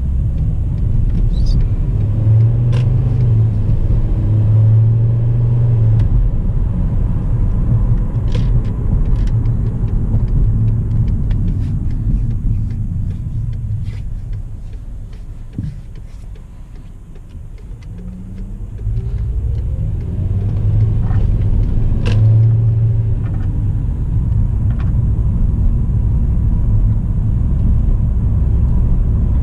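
2009 Volkswagen Jetta driving on a test drive of its newly replaced drive axle: steady engine and road rumble that dies down about halfway through as the car slows, then builds again as it picks up speed.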